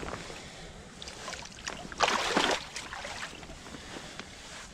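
Creek water running, with a louder splash of water about two seconds in and a few small clicks.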